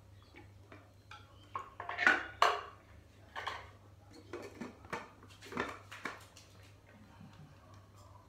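Clear plastic jar, lid and fittings of a Mitochiba CH200 blender knocking and clicking as they are handled and fitted together. It is an irregular string of clatters, the loudest pair about two seconds in.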